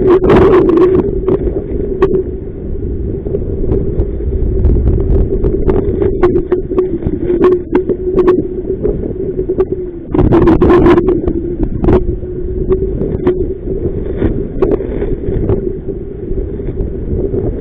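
Strong wind buffeting the microphone aboard an inflatable boat, with water splashing and slapping against the hull and a steady hum underneath. The gusts and splashes are heaviest at the start and again about ten seconds in.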